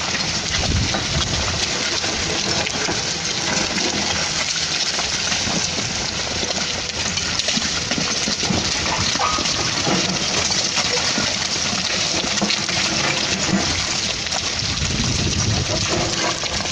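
Continuous rushing, gravelly noise made of many small clatters: loose rock and soil sliding and tumbling down a slope.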